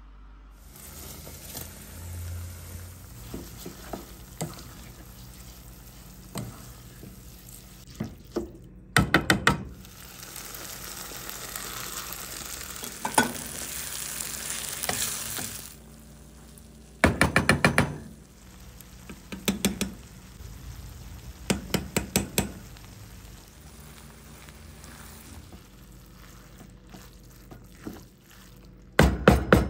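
Food frying in oil in a pan while a spoon stirs it, with five quick runs of four to six sharp taps of the utensil on the pan.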